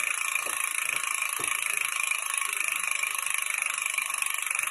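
Steady, even hissing buzz with a fine rough texture, a sound effect under an animated logo intro.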